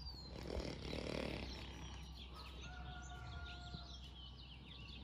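Faint outdoor ambience with small birds chirping here and there, and a steady tone held for about a second and a half near the middle.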